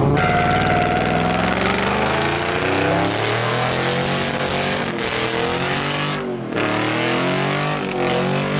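A car engine revving hard and held at high revs while its tyres spin in a burnout, with a steady hiss under the engine note. The revs dip briefly about six seconds in, then climb again.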